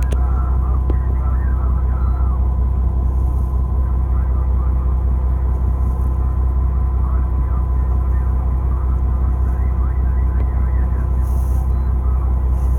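Fishing boat's engine running steadily: a constant low drone, with a thin steady whine above it.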